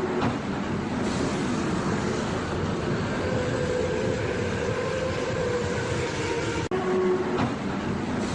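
Steady mechanical running noise of a large vehicle, with a steady tone running through it and a brief dropout near the end.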